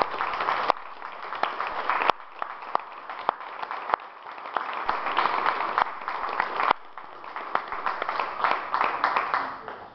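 Audience applauding, easing off about four seconds in, swelling again, then dying away near the end.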